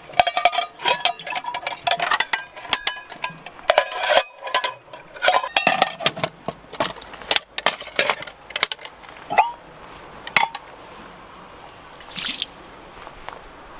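Metal camping pots, lid and mug clinking and knocking together as they are rinsed and nested, each knock ringing briefly, with water running in a concrete sink. The clatter stops about ten seconds in, leaving water splashing softly.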